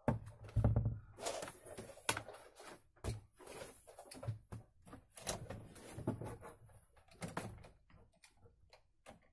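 Scattered knocks, clicks and rustles of handling as a hammer drill is plugged in. The drill's motor is not running.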